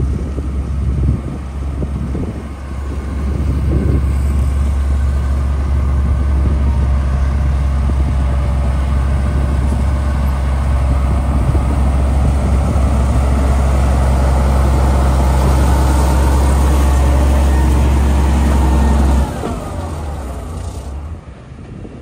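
Komatsu motor grader's diesel engine running steadily under load as its blade pushes and spreads gravel, a deep steady drone over a rush of gravel noise. The drone drops away suddenly near the end.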